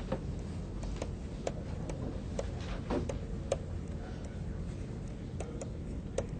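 Irregular light ticks and taps of a pen stylus on a tablet during handwriting, over a low steady hum.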